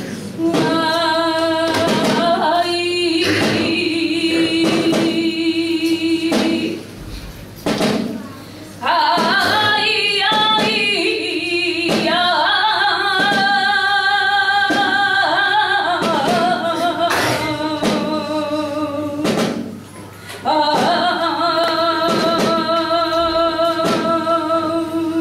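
A woman singing a saeta in flamenco style: long ornamented phrases with wavering held notes, pausing briefly between phrases, over steady strokes on a drum.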